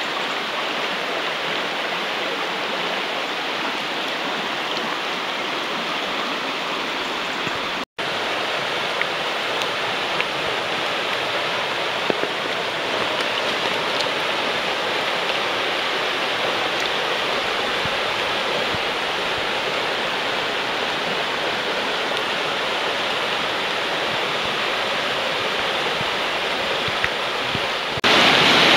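Clear mountain stream rushing over stones, a steady wash of running water. It cuts out for an instant about eight seconds in and gets louder near the end.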